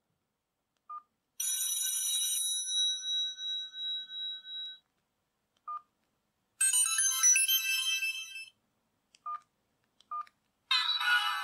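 Sony Ericsson W380i mobile phone playing ringtone samples through its small speaker. A bright chime comes in about a second and a half in and rings out over a few seconds. A busier run of electronic notes follows around seven seconds, and another clip starts near the end. Short beeps fall in the silent gaps between them.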